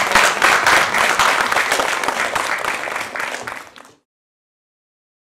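Audience applauding, many hands clapping together, fading and then cutting off abruptly about four seconds in.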